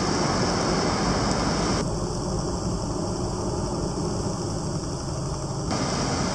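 Steady construction-site and city noise: a low engine rumble from working machinery under a constant hiss.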